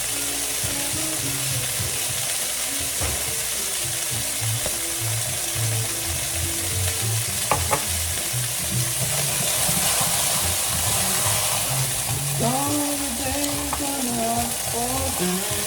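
Thin chicken cutlets sizzling steadily as they pan-fry in hot oil, with two sharp clicks about halfway through.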